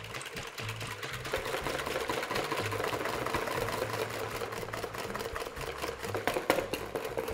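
Wire balloon whisk beating eggs and cream in a plastic mixing bowl: a fast, steady clatter of the wires against the bowl.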